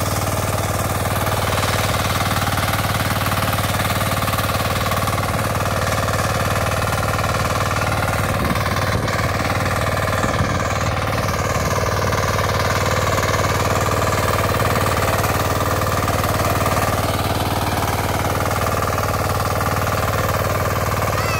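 Walk-behind power tiller's engine running steadily under load as its rotary tines churn through the soil.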